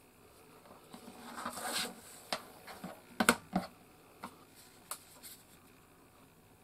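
A small wooden case and its braided cord being handled on a work mat: a soft rustle of the cord about a second in, then a few light knocks and clicks of wood, the sharpest a little past the middle.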